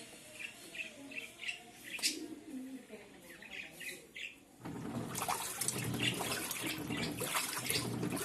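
Short high chirps of birds, then about halfway through the washer's wash agitation starts suddenly: water churning and sloshing in the tub of an LG Turbo Drum top-load washing machine, its clutch screw freshly recalibrated so the brake releases without freeing the transmission gears.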